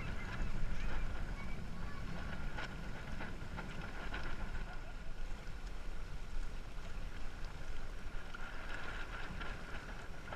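Wind rumbling on the microphone of a small sailing dinghy under way, with water rushing and splashing along the hull and occasional sharp slaps of spray.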